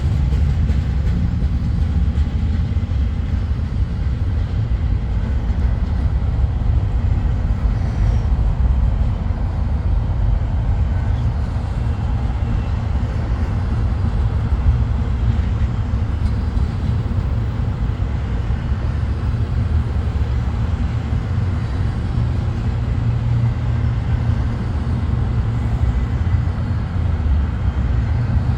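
Intermodal freight train's cars rolling past on the rails: a steady, low rumble.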